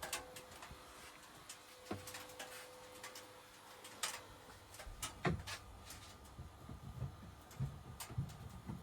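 Scattered light clicks and taps from handling objects in a small room, with a few soft low thumps in the second half.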